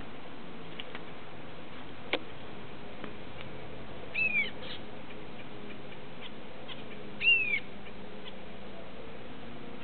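Two short, arched whistled calls from small finches in an aviary, one about four seconds in and a louder one about seven seconds in, over a steady hiss. A single sharp click about two seconds in.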